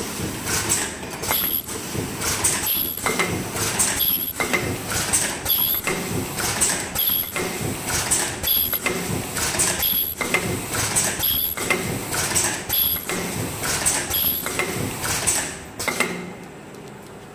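Ultrasonic mask ear-loop welding machine running through its automatic cycle: a steady clatter of mechanical and pneumatic clicks, with a short high-pitched tone repeating about every one and a half seconds as each mask is processed. It quiets near the end.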